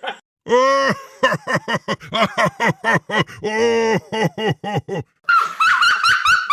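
Cartoon character laugh sound effects: a run of quick pitched 'ha' syllables, about three a second, then about five seconds in a much higher-pitched, faster laugh.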